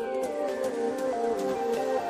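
Outro music: a melody of short pitched notes stepping up and down, slowly getting louder.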